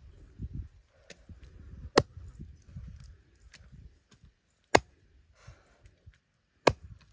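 A knife chopping a snake into sections on a round wooden chopping block: three sharp chops, about two seconds apart, with quieter handling noise between them.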